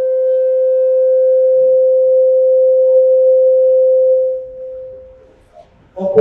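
A single steady, very pure tone, held level for about four seconds and then fading away: a sound-system microphone feedback ring set off by the preacher's voice.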